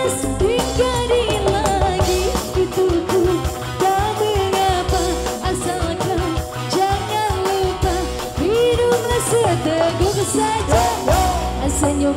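A woman singing a melody with gliding, wavering notes into a microphone, backed by a live band of electric guitars and hand drums over a PA system with a strong, pulsing bass.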